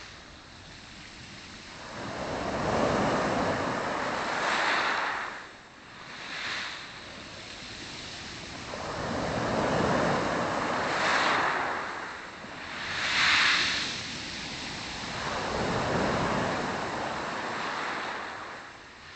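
Black Sea waves breaking and washing up the shore, the surf swelling and falling away every few seconds, with the sharpest crash about 13 seconds in.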